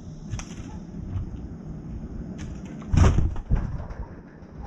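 Bird wings flapping in a sudden loud flurry about three seconds in, with a second smaller flap about half a second later, as a young crow takes off from the feeder and a pigeon flutters. Before that, a few light taps and clicks of the crow pecking at food on a metal tray.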